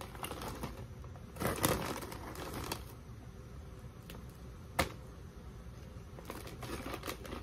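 Plastic snack bag crinkling as a hand reaches in for Funyuns onion-flavored rings, with crunching as the crisp rings are chewed. A single sharp crack comes about halfway through.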